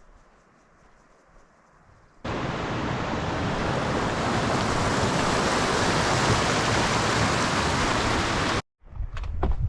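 Rushing water, loud and steady, that starts suddenly about two seconds in and cuts off abruptly near the end. Faint crunching footsteps on a trail follow right after.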